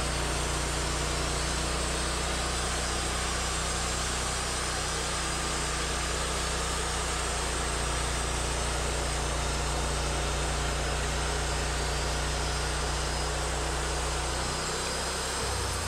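Portable sawmill's engine running steadily under load while the blade cuts along an ash log, with a dense, hissing cutting noise over the engine's drone; the engine note changes about a second before the end.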